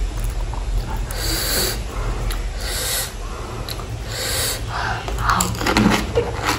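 A person eating spicy pani puri draws three sharp, hissing sucking breaths through the mouth, about a second and a half apart, then crunches and chews near the end.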